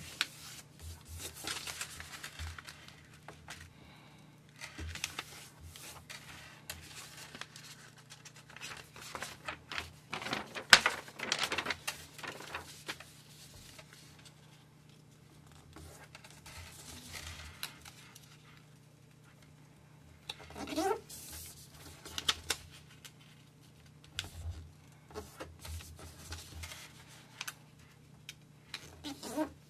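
Sheet of printer paper being folded and creased by hand on a tabletop: irregular papery rustling and swishing as it is turned and pressed flat, loudest around ten to twelve seconds in.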